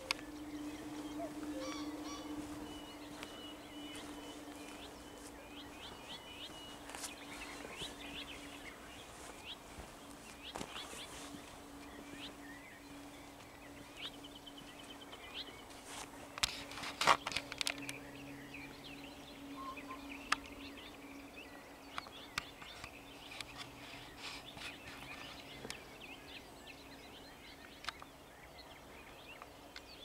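Dawn chorus of songbirds, many short chirps and trills, over a faint steady low hum. About seventeen seconds in comes one loud, harsh cluster of sharp sounds.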